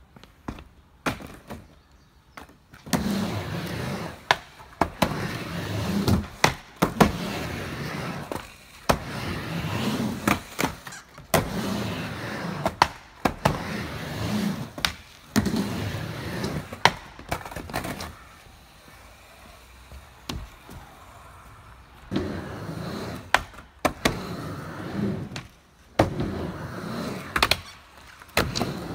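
Skateboard rolling back and forth on a wooden mini ramp. The wheels rumble, swelling and fading with each pass, and sharp clacks come as the trucks and tail hit the coping at the top of the walls. The rolling stops for a few seconds past the middle, then starts again.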